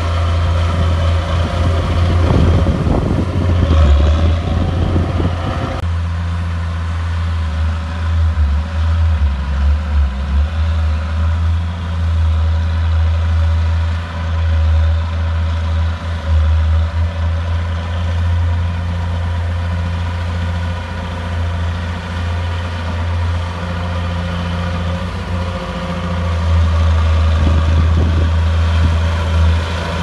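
Diesel engine of a Komatsu D31 crawler bulldozer running steadily under load as it pushes dirt, a continuous low drone. A rougher, noisier stretch between about two and six seconds in stops abruptly.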